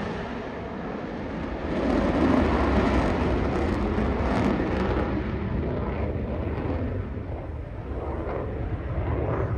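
Jet noise from an F-22 Raptor's twin Pratt & Whitney F119 turbofans as the fighter flies away, heard at a distance: a rough, rushing noise that grows louder about two seconds in and then slowly fades.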